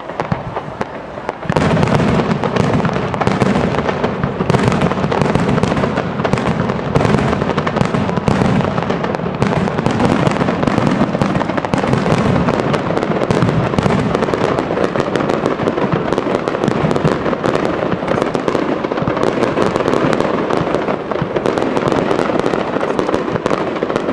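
Japanese aerial fireworks display: a dense, continuous barrage of bangs and crackling that jumps up abruptly about one and a half seconds in.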